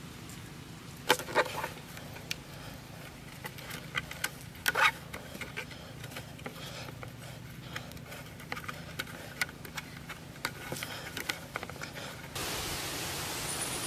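Hands working a wire-bound joint of wooden poles on bare soil: scattered scrapes and clicks, with louder knocks about a second in and again near five seconds in. Near the end a steady hiss sets in abruptly.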